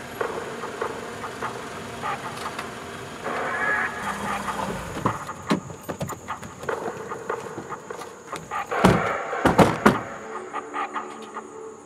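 SUV doors being opened and shut by people getting out, with scattered clicks and thuds; the loudest thuds come about nine and ten seconds in.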